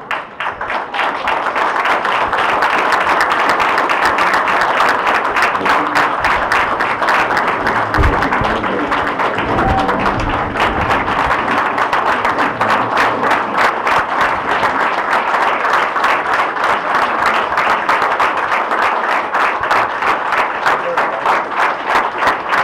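A roomful of people applauding at length, many hands clapping at once, with the individual claps growing more distinct and regular towards the end.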